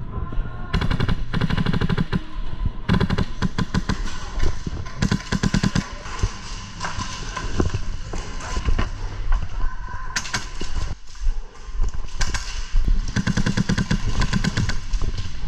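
Airsoft guns firing several rapid full-auto bursts of clicks, echoing in a large indoor hall.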